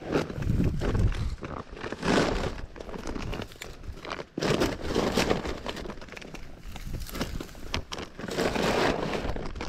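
Dry grass rustling and a plastic bag crinkling as handfuls of dried grass are stuffed into it, in several bursts with short pauses between.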